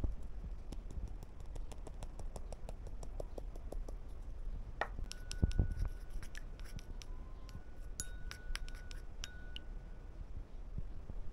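Light scratching and many small clicks of objects being handled, with a sharper knock about five seconds in and a few brief high squeaky tones.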